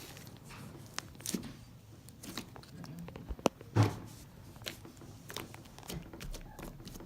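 Slime being squeezed and kneaded by hand: irregular soft clicks, pops and squelches, with a louder pop nearly four seconds in.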